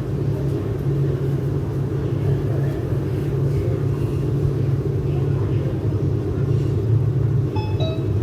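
Shanghai Metro 09A02 electric multiple unit running between stations, a steady low rumble of wheels and traction heard from inside the carriage. Near the end a few short high tones sound over it.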